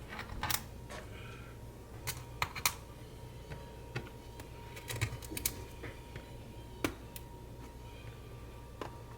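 Scattered light clicks and taps as small screws and a screwdriver are set onto a MacBook Pro's aluminium bottom case to refit its screws. The clicks are irregular, in a loose cluster a couple of seconds in and another about five seconds in.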